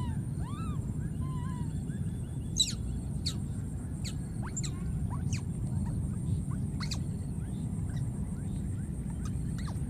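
Baby monkeys giving a few short, arching squeaks in the first couple of seconds, followed by a scattered run of sharp, thin, quickly falling high chirps, over a steady low rumble.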